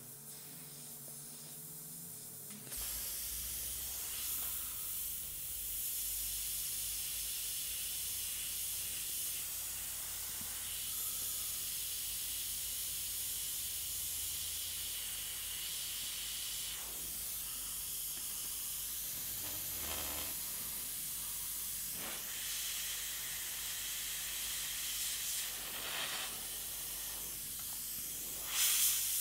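Airbrush spraying paint: a steady air hiss that starts about three seconds in, broken by a few short, louder puffs as the trigger is worked.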